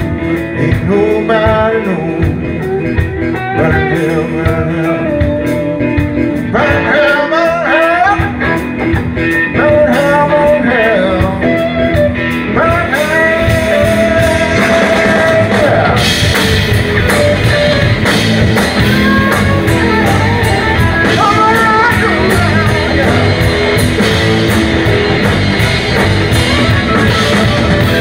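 Live electric blues band playing an instrumental break, with a lead electric guitar bending notes over bass, drums and keyboard. About 16 seconds in, the cymbals come up and the full band plays louder and denser.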